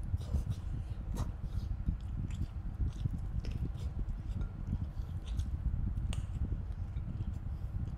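Close-miked mouth sounds of eating a curry-soaked chicken leg by hand: wet chewing, lip smacks and bites at the drumstick, with many small scattered clicks.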